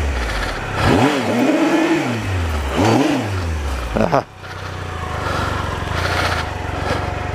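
Triumph Explorer adventure motorcycle engine revved in two rising-and-falling bursts, then dropping suddenly to a steady idle about four seconds in.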